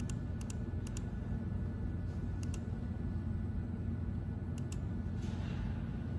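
Short, sharp clicks, mostly in quick pairs, as fingers tap the stone bridge saw's CNC touchscreen keypad, over a steady low hum.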